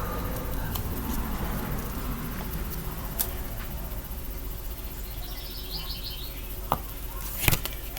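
A bird chirping in a short quick trill about five seconds in, over a low steady room background, with a few sharp clicks near the end.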